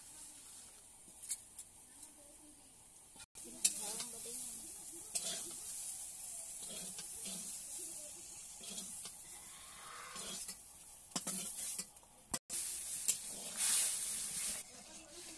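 Sliced okra, bitter gourd and green chillies sizzling in a kadai while a metal spoon stirs and scrapes them, with clinks of metal on metal. The hiss starts abruptly about three seconds in.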